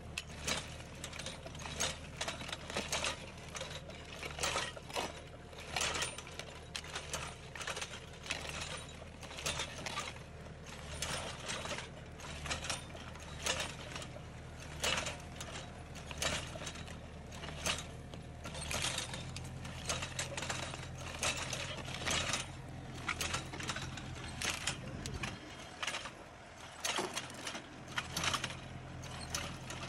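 A tractor engine runs steadily while the steel discs of a Kadıoğlu EKO sensor-arm vineyard hoe's three-disc attachment cut through stony soil, with irregular metallic clinks and scrapes several times a second as stones strike the discs.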